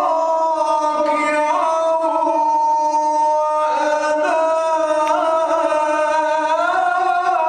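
A male Qari's voice reciting the Quran in melodic tajweed style, amplified through a microphone. He holds long, drawn-out notes that step up and down in pitch every second or two, without pause.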